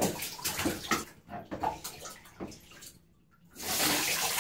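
Bath water splashing in a bathtub in short scattered splashes, then about three and a half seconds in a steady rush of water poured from a plastic cup over a toddler's head.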